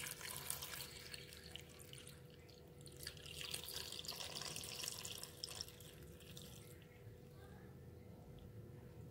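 Water poured from a plastic measuring jug onto banana-leaf-wrapped sticky rice parcels in a pot, splashing and trickling; the flow weakens about seven seconds in.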